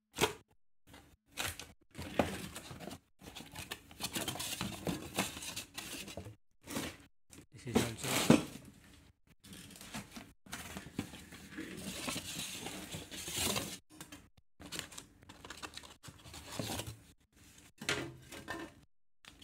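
Cardboard carton being opened by hand: flaps pulled open and folded back, with irregular tearing, scraping and rustling of cardboard and plastic packing, and one louder crack about eight seconds in.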